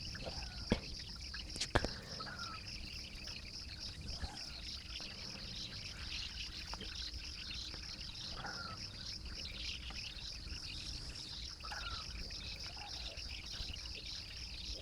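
Crickets chirping in a steady, fast-pulsing trill, with a few faint, short bird-like calls scattered through. There are two light clicks in the first two seconds.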